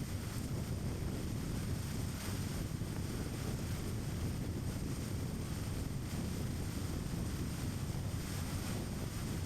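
Steady road noise of a car on the move: a low rumble of tyres and engine with wind noise over it, even throughout with no sudden events.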